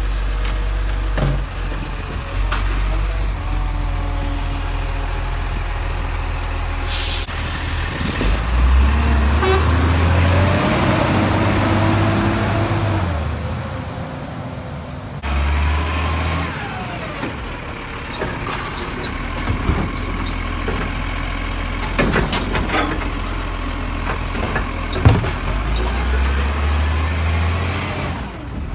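Side-loading garbage trucks at work. A diesel engine runs and revs up as the automated arm lifts and tips a wheelie bin, with a short air hiss, and the truck pulls away. Then another truck's engine runs, with a few sharp clanks and hisses.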